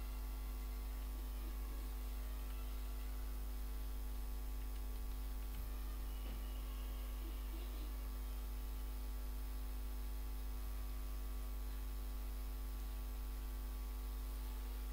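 Steady electrical mains hum with a ladder of faint overtones, holding level throughout.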